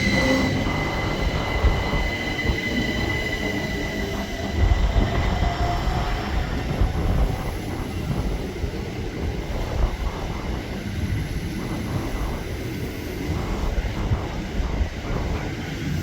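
Passenger trains running through the station: a steady rumble of wheels on the rails, with a high steady squeal that fades away over the first few seconds and a fainter whine that glides in pitch a few seconds later.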